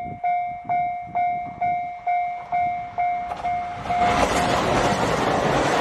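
A railway level-crossing alarm bell rings about twice a second as a diesel limited express train approaches. About four seconds in, the train passes close by and its rushing and rail noise drowns out the bell.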